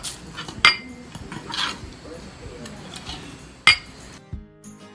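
Metal spoon stirring a dry spice rub in a glass bowl, scraping through the grains and clinking against the glass, with two sharp clinks: one under a second in and one near the end.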